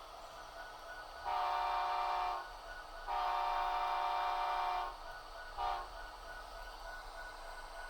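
A model diesel locomotive's sound system sounding its horn: a multi-note chord blown in two long blasts and then a short one.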